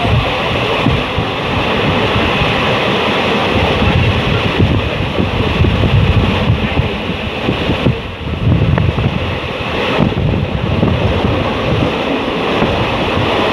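Wind buffeting the microphone on a moving train, over the continuous low rumble of the train running.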